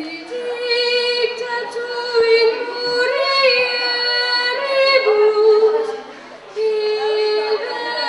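A child's voice singing long held notes into a microphone, without accompaniment, with a short break about six seconds in.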